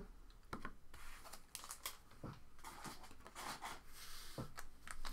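Trading cards and sealed card packs being handled on a table: faint rustling with scattered light clicks.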